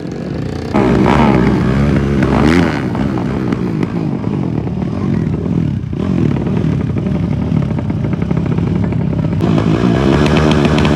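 Racing motorcycle engines at high revs under hard acceleration, loud, the pitch rising and falling as the bikes run.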